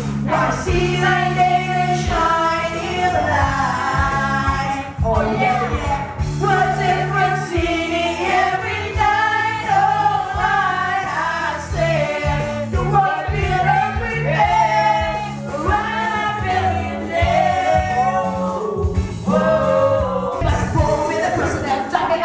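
A song with backing music and several people singing along, videoke-style.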